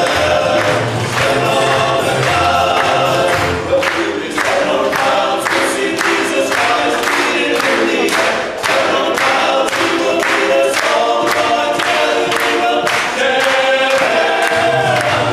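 Men's vocal group singing gospel-quartet harmony in several parts, a bass voice low underneath, over a steady beat of sharp percussive hits.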